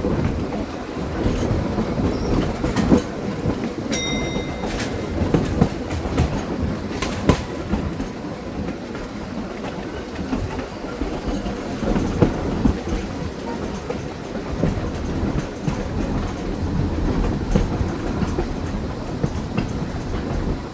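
A 1926 Wason-built electric trolley, Springfield Electric Railway 16, running along its track: a steady rumble of wheels with irregular clacks and knocks over the rails, and a brief high tone about four seconds in.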